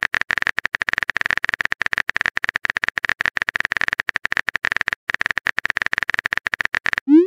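Rapid phone-keyboard typing clicks, a texting-app sound effect, with a short pause about five seconds in. Near the end the typing stops and a short rising blip sounds as the message is sent.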